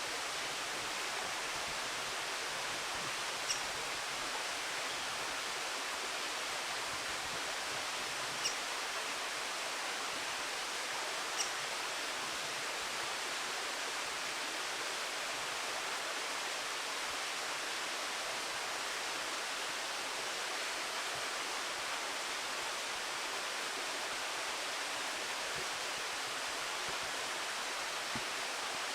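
Three short, sharp, high-pitched calls a few seconds apart in the first half, typical of Japanese paradise flycatcher fledglings, over a steady rushing background noise.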